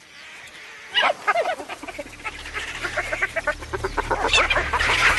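A group of spotted hyenas calling over one another with short, high, bending squeals and cackles. The calls start about a second in and grow denser and louder.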